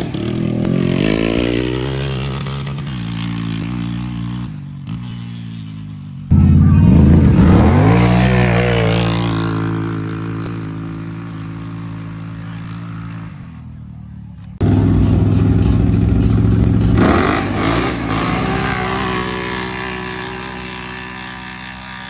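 Racing ATV engines at full throttle down a dirt drag strip, revving up through the gears and fading as the quads pull away. The sound jumps back to full loudness twice, as three runs follow one another.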